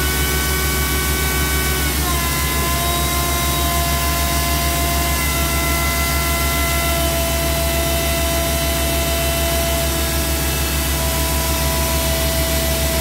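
Crawler drilling rig and portable air compressor running together: a loud, steady engine drone with a whining tone that drops in pitch about two seconds in and shifts a few more times as the rig is worked.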